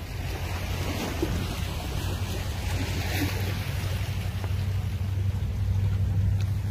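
Seaside ambience: a steady low rumble that grows a little louder near the end, with a faint wash of sea waves.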